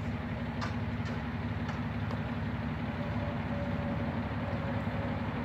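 A vehicle engine idling steadily, a low even hum, with a few faint clicks in the first two seconds.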